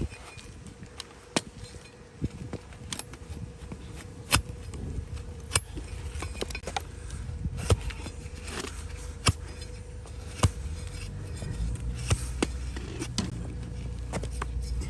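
Donkey hoof being cut and pared: irregular sharp cracks roughly every second, with scraping between them.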